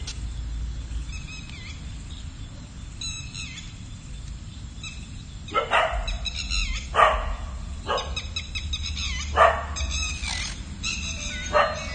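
A dog barking a few times, short single barks at irregular intervals starting about halfway through.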